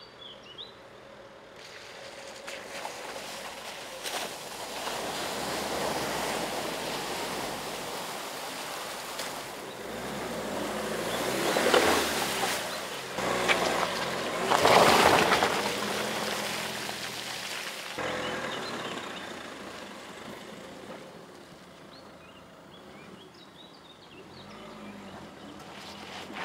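A van's wheels wading through a shallow water crossing: water sloshing and rushing, with two loud surges of splashing about twelve and fifteen seconds in, over its 130 hp diesel engine running at low revs. Afterwards the sound drops back to quiet running.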